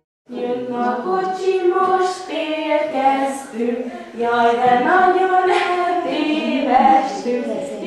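Several voices singing a song together, beginning abruptly a moment in.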